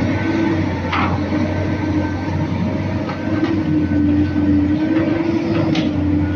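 Construction machine's diesel engine running steadily under load, its pitch wavering slightly, with a few short metallic clanks.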